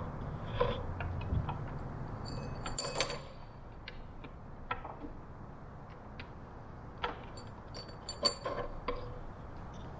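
Scattered small clicks and light metallic clinks of hands working small electrical hardware and wiring. The loudest clusters come about three seconds in and again a little after eight seconds.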